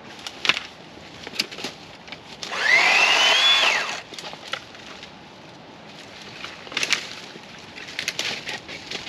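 Master Force 80-volt battery chainsaw revved once for about a second and a half: its motor whine climbs in pitch, holds briefly, then falls away. Twigs and brush crack and snap underfoot before and after.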